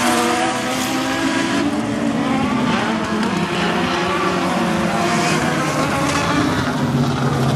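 Several race car engines running hard at once on a dirt oval, their pitches rising and falling as the cars lap and change throttle.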